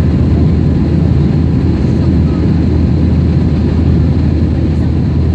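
Airliner engines giving a steady, loud low rumble that holds at one level without rising or falling.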